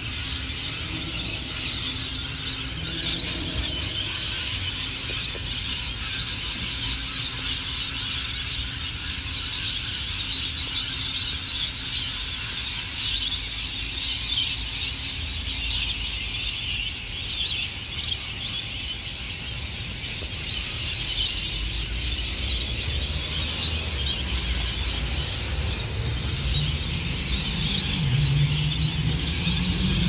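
A large flock of birds in the trees screeching and chattering all at once in a dense, unbroken din. Near the end a vehicle engine rises underneath it.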